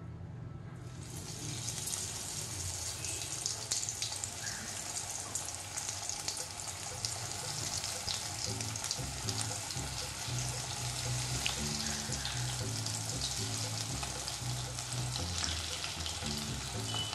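Cornflake-crumbed chicken pieces deep-frying in hot oil: a steady sizzle full of fine crackles. It starts about a second in, as the first pieces go into the oil.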